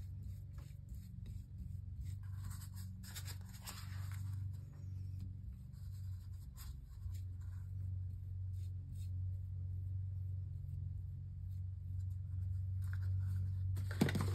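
Flat paintbrush stroking acrylic paint onto a ceramic tile coaster as a base coat: soft, irregular scratching strokes, busiest a couple of seconds in. A steady low hum runs underneath.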